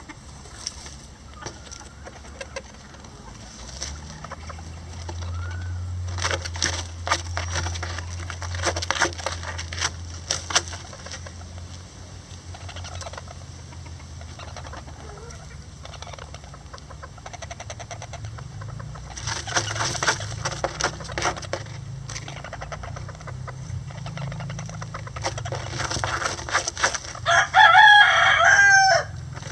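Lavender Old English Game bantam chickens in a nest: soft clucks and bursts of rustling and crackling in the dry straw and twigs. Near the end a bantam rooster crows once, loud.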